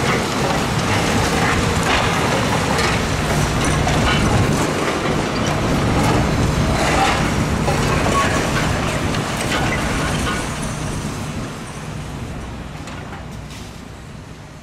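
Heavy diesel machinery on a demolition site, a mobile crusher and excavators working concrete rubble, running with a steady low drone and scattered knocks and clatter. The sound fades out over the last few seconds.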